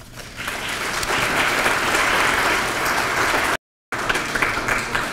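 Audience applauding, swelling up in the first half second and holding steady. A brief gap of total silence about three and a half seconds in, after which the applause carries on a little weaker.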